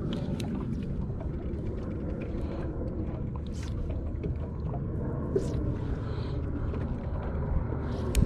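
Steady low rumble of a small fishing boat on the water, with scattered light clicks and taps.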